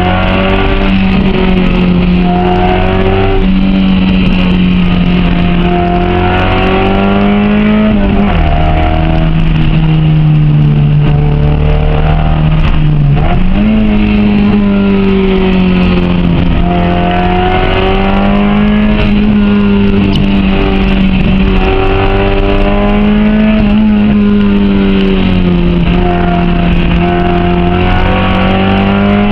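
Honda H22A four-cylinder engine in a Civic coupe running hard under load, its pitch climbing and falling with the revs and dropping sharply twice, about 8 and 13 seconds in.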